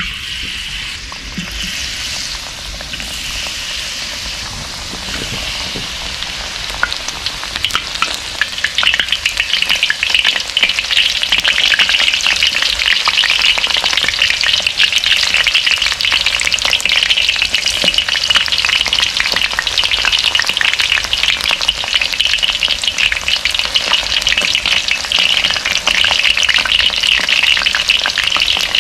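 Tempura-battered vegetables deep-frying in hot oil in a wok: a dense, crackling sizzle. It grows louder about eight seconds in as more battered pieces go into the oil.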